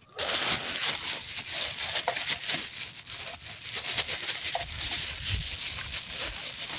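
Dense rustling with many small clicks and taps as a catch container holding fish and river shrimp is opened and rummaged through.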